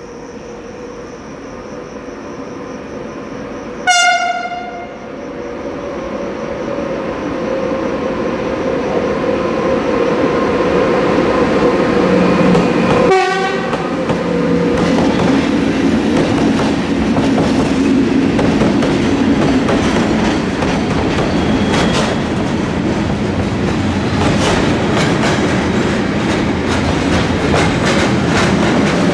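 Siemens EuroSprinter electric locomotive hauling a freight train: its horn gives a short blast about four seconds in and another as it passes, the second dropping in pitch. The train's rumble grows louder as it comes near, then the wagons roll by with a fast rhythmic clatter of wheels over rail joints.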